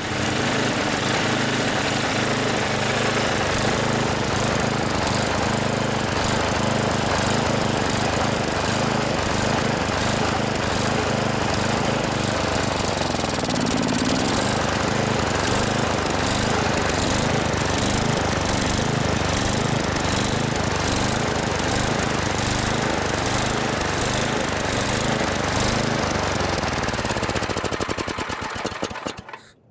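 Ariens 824 snowblower's single-cylinder four-stroke engine running and surging, its speed rising and falling unevenly rather than holding steady, before it dies away near the end. The owner puts the surging down to a clogged fuel-air mixture pin in the carburetor.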